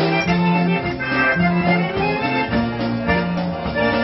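Live polka band playing a polka, held melody notes over a bass line that moves on the beat.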